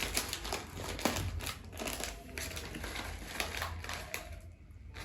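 A packet of Jelly Belly jelly beans being handled and opened: a run of crinkling and small clicks that dies down near the end.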